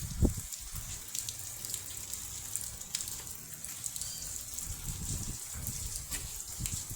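Steady rain falling, a continuous hiss dotted with drop ticks, with irregular low thumps underneath.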